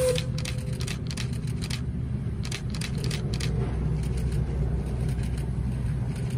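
Shay geared steam locomotive approaching at low speed: a steady low rumble with many quick, irregular clicks over the first few seconds. The last of a steam whistle dies away just at the start.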